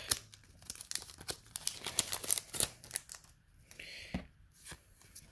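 Foil booster-pack wrapper crinkling and tearing open, mixed with trading cards being handled: irregular small crackles and clicks, busiest about four seconds in.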